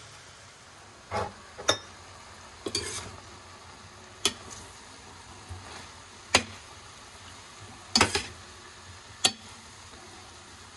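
Metal spatula stirring string beans and chicken in a stainless-steel Saladmaster electric skillet, clinking sharply against the pan every second or two, over a faint sizzle of the cooked food.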